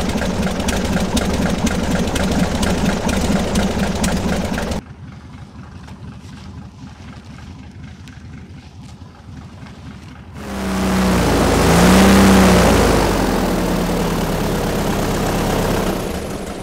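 Airboat engine and propeller running loudly, stopping abruptly about five seconds in; after a quieter stretch it revs up hard about ten seconds in, its pitch rising and bending, then settles to a steady high run.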